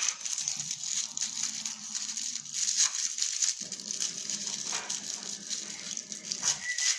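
Plastic toy packaging crinkling and rattling as it is handled and opened, in irregular bursts of crackling.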